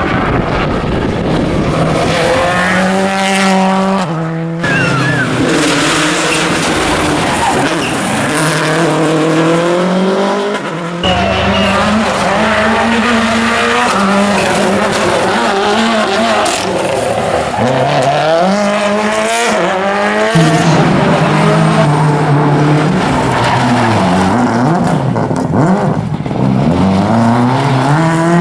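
Subaru Impreza WRC rally car's turbocharged flat-four engine revving hard, its pitch climbing and dropping again and again as it shifts through the gears, over several passes joined by abrupt cuts.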